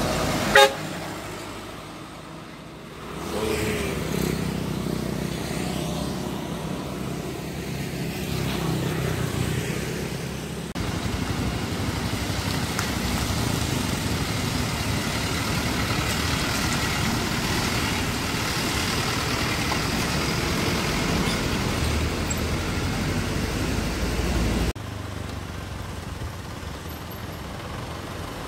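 Road traffic passing close by: light trucks and motorbikes with engines running and tyres on the road, and a vehicle horn tooting. A very brief loud burst comes about half a second in.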